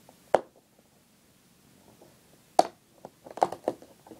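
Hands handling a cardboard Lego advent calendar box and the crumpled wrapper of the piece just taken out of it: two sharp clicks, then a short run of crinkling and crackling near the end.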